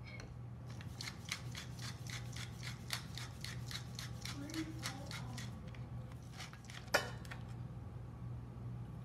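Pepper mill grinding black pepper over a bowl: a run of short rasping crunches, about four or five a second, for several seconds. Near the end comes one sharp knock.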